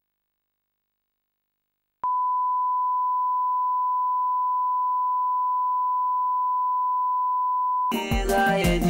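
Silence, then a steady 1 kHz test tone, the reference tone that goes with colour bars at the head of a video tape, starting suddenly about two seconds in. It cuts off about six seconds later as music with a steady beat begins.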